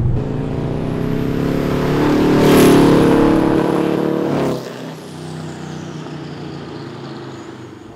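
The twin-turbo 2.4-litre air-cooled flat-four of a 1959 VW Beetle running under power, swelling to a peak about two and a half seconds in, then dropping off suddenly about halfway through. A faint high whine rises and then falls slowly in pitch.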